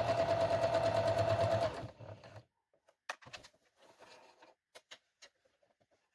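Electric sewing machine stitching stretch fabric at a steady pace, a rapid even rhythm of needle strokes over a steady motor whine, stopping suddenly just under two seconds in. A few faint clicks and rustles follow.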